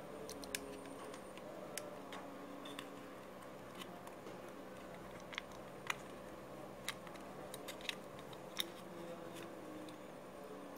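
Scattered faint clicks and taps as the plastic case of an opened TV antenna booster and its cables are handled, about a dozen spread irregularly, over a steady low hum.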